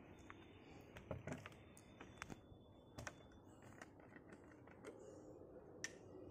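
Faint, scattered clicks and light taps of empty plastic jerry cans being handled on a concrete floor, over a low steady hiss.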